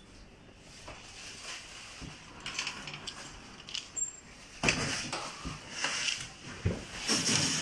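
Rustling and light knocks from hands working on a mountain bike's front fork and its plastic and foam packaging, in several short bouts starting about four and a half seconds in, with one sharper knock near the end.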